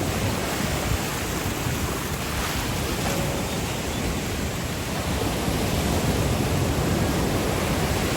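Surf washing onto a sandy beach, a steady rush of waves with wind buffeting the phone's microphone; it swells a little about halfway through.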